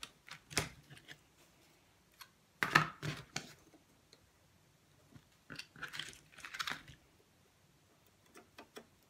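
Wooden spring clothespins being handled and clipped onto a wire wreath frame: clusters of short clacks and clicks of wood and metal, the loudest about three seconds in, with another run of clicks around six to seven seconds in.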